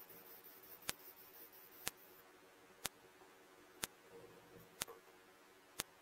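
Faint sharp ticks, evenly spaced about once a second, over a quiet background.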